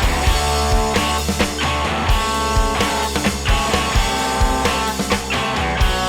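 Rock band playing: electric guitar run through a JHS Solo Boost pedal, over drums keeping a steady beat.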